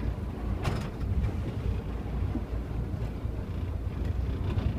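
Steady low rumble of a sport-fishing boat under way, with a short rustling hiss a little under a second in.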